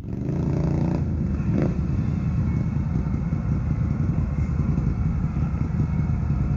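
ATV engine running loud and close. It revs up over the first second, then runs on steadily with a rough, pulsing low rumble. There is a single sharp click about a second and a half in.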